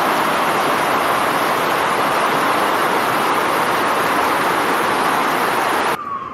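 Loud, steady rush of floodwater running in a torrent down a street. It cuts off suddenly near the end, where a siren's wail begins.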